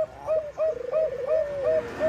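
Zebra dove (Thai 'perkutut bangkok' strain) cooing: a quick series of short rising-and-falling coo notes, about three a second, with a fast rolling trill about halfway through.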